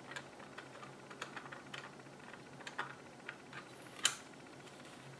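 Scattered light clicks and taps of a 3D-printed plastic model transmission being handled and turned over in the hands, with one sharper click about four seconds in.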